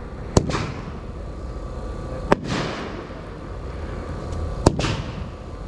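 108 Fireworks' Demons of the Night, a 10-shot 500 gram cake, firing shot after shot: three sharp bangs about two seconds apart, each followed by a short hissing tail.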